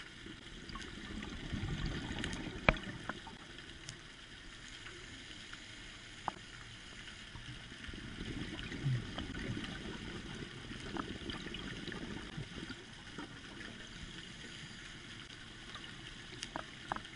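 Underwater sound heard through a camera housing: a scuba diver's exhaled bubbles rumbling and gurgling in slow swells, with scattered sharp clicks, the loudest one near the start.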